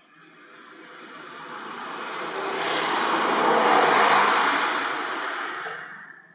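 A road vehicle passing by: a steady rushing noise that swells to its loudest about four seconds in, then fades away.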